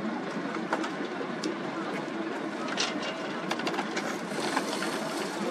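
Indistinct background voices and outdoor noise over water, with scattered light clicks throughout.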